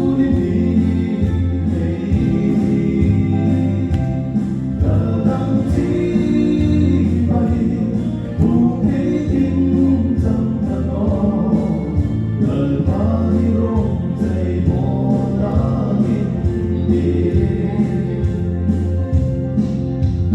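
Background music: a gospel song with group singing over a steady bass and regular beat.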